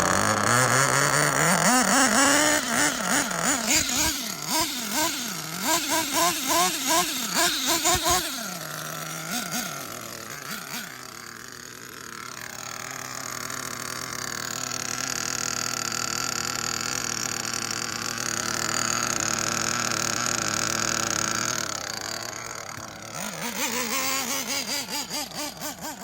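Small nitro engine of a Kyosho Inferno NEO ST 3.0 RC truck, revving in quick repeated blips, about two a second, then running at a steadier high pitch and more faintly for a long stretch, before blipping again near the end.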